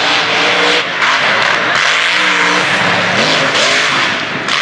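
Mega truck's engine revving hard, its pitch repeatedly swinging up and down as the throttle is worked, over a loud rushing noise.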